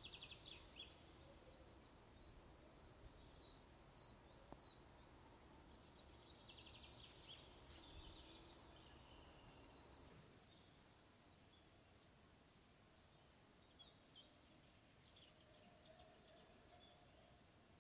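Faint chirping of small songbirds: clusters of quick, high, falling notes that thin out after about ten seconds, over a low outdoor hush.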